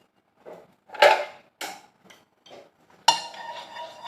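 Metal cookware clattering: several separate knocks and scrapes, then a sharper clang about three seconds in that keeps ringing.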